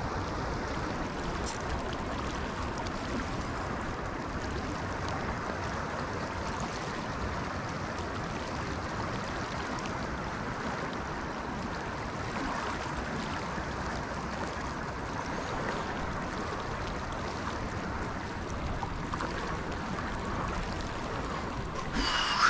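River current rushing steadily past close to the microphone, with a brief louder, higher sound right at the end.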